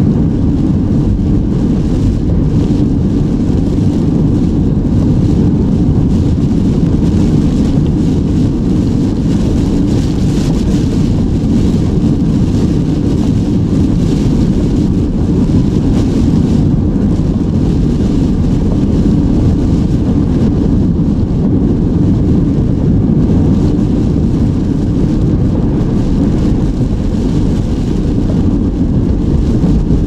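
Steady low rumble of a car driving on a wet road, heard from inside the cabin: engine and tyre noise with a faint hiss above it.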